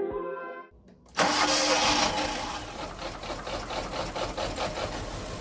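Electronic music fades out in the first second, then the Hyundai Getz's 1.3 litre 12-valve four-cylinder engine cuts in, idling with an uneven pulsing beat. The shaky idle is the sign of a misfire from two dead cylinders.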